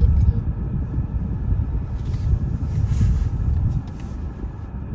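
Low, steady rumble of a car's engine and road noise heard from inside the cabin as it creeps up in slow traffic, easing off about four seconds in as the car comes to a stop behind the queue.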